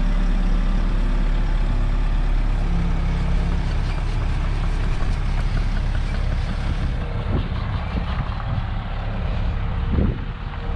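Bobcat T66 compact track loader's diesel engine running steadily, with a couple of short knocks in the last few seconds.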